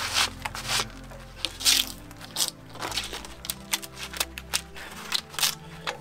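Draw knife scraping bark off a shagbark hickory log in a dozen or so short, uneven strokes, over background music.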